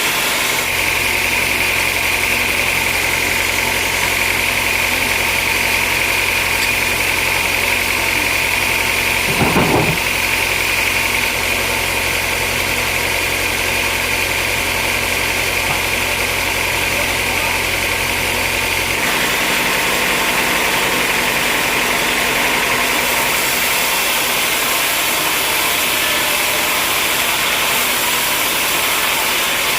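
Sawmill machinery running steadily, a continuous mechanical drone. There is a brief louder burst about a third of the way in, and a low hum drops out a little past halfway.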